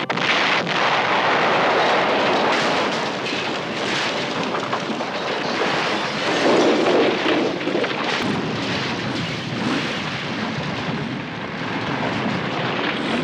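TV action sound effects: a continuous loud rumbling roar of an explosion and a collapsing rock slope, unbroken throughout.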